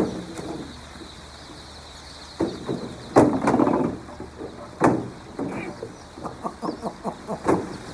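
Chickens clucking, among scattered knocks and clatters, with a quick run of light taps near the end.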